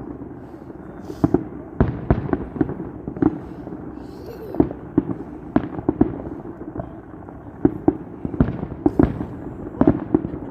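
Fireworks going off across a city: a steady run of irregular bangs and cracks, sometimes several a second, over a constant background rumble of more distant bursts.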